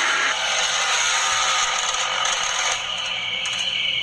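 Wooden door creaking and scraping as it slowly swings shut on its own, a horror sound effect.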